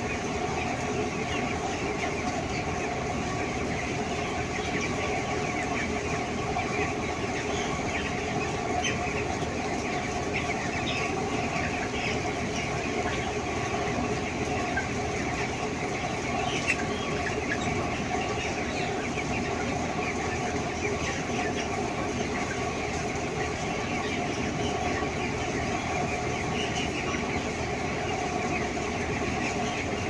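A large flock of broiler chickens in a shed, many birds clucking and chirping at once in a constant chatter, over a steady machine hum.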